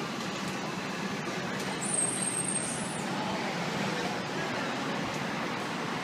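Fire truck's diesel engine running as it pulls out of the firehouse, over steady street traffic noise, with a brief high hiss about two seconds in.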